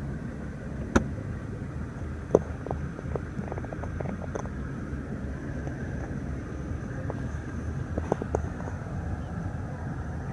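Sharp clicks and light knocks from the car's cabin buttons and trim being handled, the loudest about a second in and another near two and a half seconds, with scattered small ticks later, over a steady low rumble.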